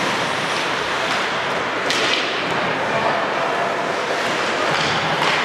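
Ice hockey game sounds in a rink: a steady wash of skate and crowd noise, broken by a sharp crack, such as a stick on the puck, about two seconds in and another near the end.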